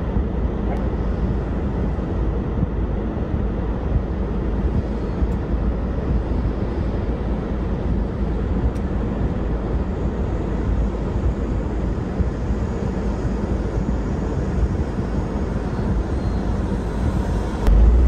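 Steady deep rumble of an off-road vehicle's engine running and blizzard wind, heard from inside the cab; the rumble swells near the end.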